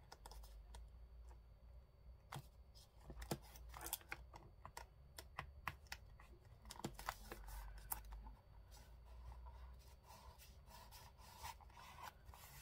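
Quiet paper-crafting handling: scattered light clicks, taps and rustles as paper pieces and small tools are handled on a work surface.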